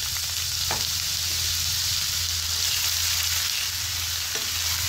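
Freshly added chopped onion sizzling hard in hot cooking oil in a non-stick kadai, stirred with a silicone spatula. The spatula knocks softly against the pan twice.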